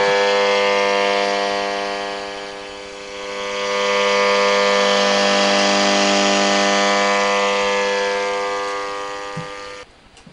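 Portable AM radio tuned to medium wave, held close to an LED lamp, giving out a loud buzz with hiss. The buzz is electrical interference picked up from the LED lamp. It dips about three seconds in and swells again as the radio is moved, then tapers and cuts off shortly before the end.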